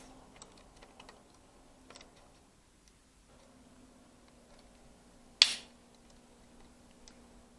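Small ticks and clicks of the drive being worked out of a laptop's drive bay, with one sharp click about five and a half seconds in.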